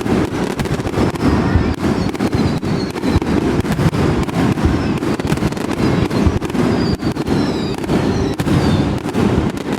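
Fireworks display: a dense, continuous barrage of bangs and crackles, with several short falling whistles.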